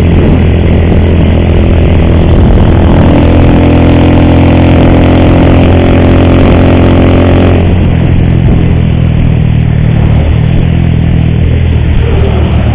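Motorcycle engine running loud while riding, its note climbing a little and then changing about seven and a half seconds in. The rider blames a very ugly noise from this engine on the cam chain, which is due to be replaced.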